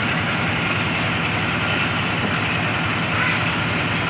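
The small stationary engine of a water-well drilling rig running steadily at a constant speed, a low, even engine note with a noisy mechanical clatter over it.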